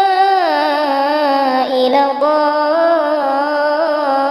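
Melodic Qur'an recitation: a single voice draws out long held vowels that bend through slow, ornamented turns of pitch, with a short breath about two seconds in.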